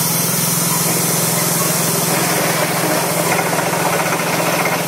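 Steady mechanical hum of a spinning children's airplane carousel ride's drive machinery, with a steady hiss over it.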